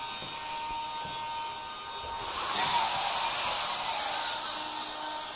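Hobby servo motors in a 3D-printed InMoov humanoid robot's arms and hands whirring for about two and a half seconds as the robot moves into a palms-up giving gesture. The whir starts about two seconds in and fades out near the end, over a faint steady high whine.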